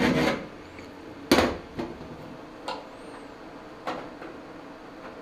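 A hand file rasping on the edge of a small sheet-metal patch piece, stopping about half a second in. Then four sharp metal clinks, spaced about a second apart with the first the loudest, as the patch piece is handled and set into the cut-out rust hole for a trial fit.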